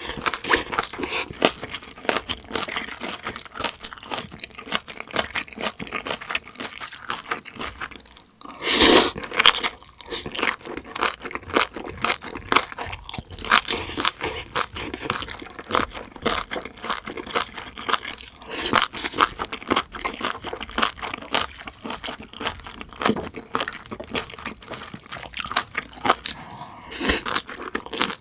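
Close-miked mouth sounds of someone eating: continuous chewing with many short, crisp crunches, the first mouthfuls being stir-fried seaweed stems. A louder burst just under a second long comes about nine seconds in.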